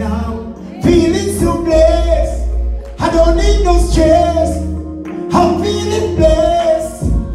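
Live reggae music: a man singing into a microphone over a backing track with a heavy bass line, his sung phrases breaking off about every two seconds.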